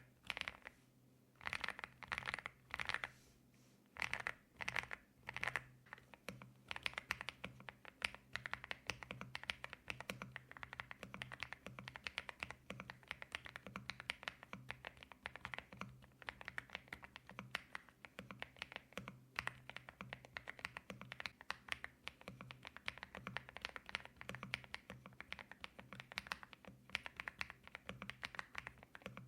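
Typing on a stock MCHOSE X75 V2 mechanical keyboard with Hyacinth 45g linear switches, a marbly sound. A few slow single keystrokes come first, then steady fast typing from about six seconds in.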